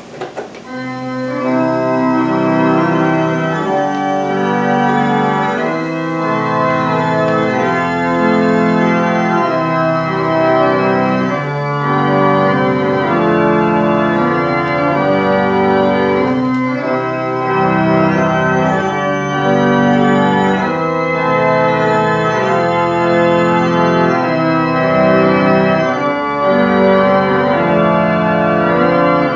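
A 1,972-pipe Aeolian pipe organ being played: full sustained chords whose notes shift every second or so, continuous after a brief drop right at the start.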